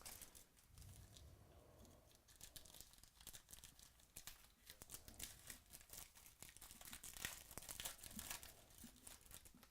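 Faint tearing and crinkling of a 2018 Chronicles Baseball card pack's wrapper as it is torn open, with irregular crackles that grow denser near the end.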